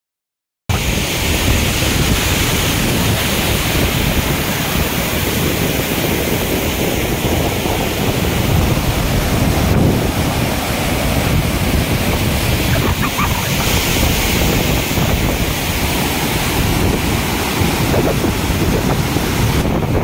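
Water rushing steadily over low rock ledges of a cascading waterfall, with wind buffeting the microphone. It starts abruptly just under a second in.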